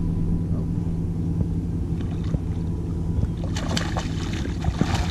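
A hooked bass thrashing and splashing at the surface near the end, over a steady low motor hum from the boat.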